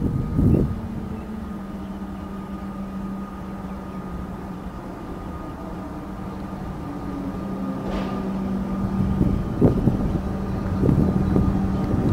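Comeng electric suburban train approaching along the platform: a steady hum with a fainter higher tone over rumbling noise that grows louder in the second half, with a few sharp knocks near the end.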